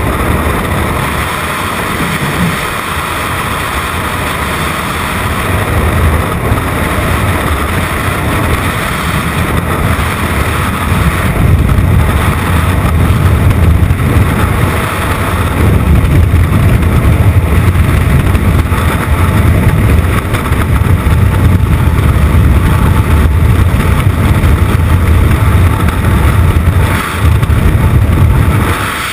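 Freefall wind rushing over a camera microphone: loud, steady buffeting heaviest in the low end, getting louder about twelve seconds in.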